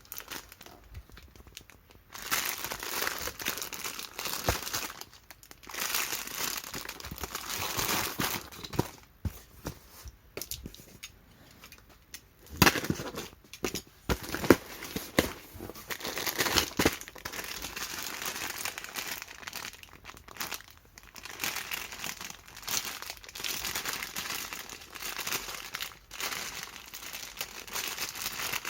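Plastic packaging crinkling and rustling as it is handled, in fits and starts, with a couple of sharper, louder crackles about halfway through.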